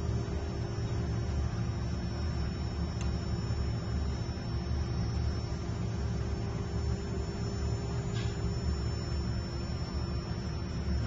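Steady low electrical hum with a constant thin tone above it, the sound of mains-powered equipment running; two faint ticks, about three and eight seconds in.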